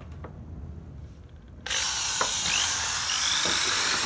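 Hitachi 100 V, 530 W corded hammer drill switched on about a second and a half in, its motor starting abruptly and then running steadily, spinning free with no load.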